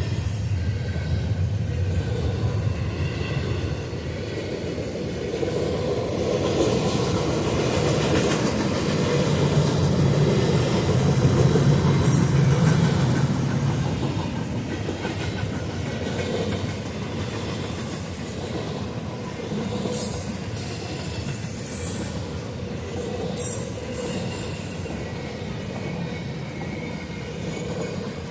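CSX freight train rolling past a grade crossing: a steady rumble of cars and wheels on the rails that swells to its loudest about halfway through and then eases off. A few short, high metallic sounds come near the end.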